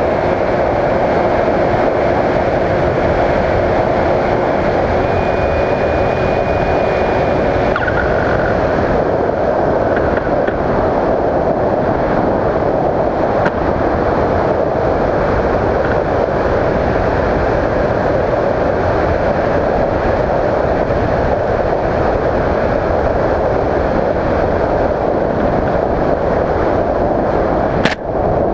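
Steady rush of airflow over an electric RC aircraft's onboard camera in flight, with a thin steady whine from the motor that stops about eight seconds in, leaving only the air noise. Near the end a brief sudden knock as the aircraft comes down into grass.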